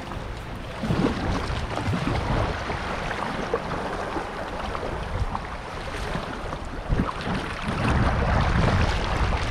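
River water rushing and splashing around a moving kayak, with the strokes of a double-bladed paddle dipping in. Wind gusts buffet the microphone, rumbling loudest about a second in and again near the end.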